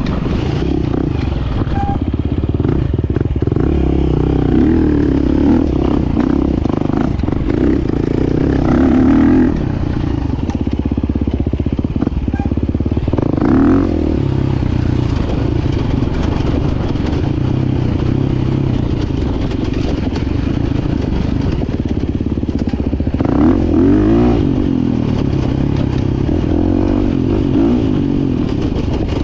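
KTM 350 EXC-F single-cylinder four-stroke dirt bike engine being ridden, revving up and down, with louder surges about nine, thirteen and twenty-three seconds in.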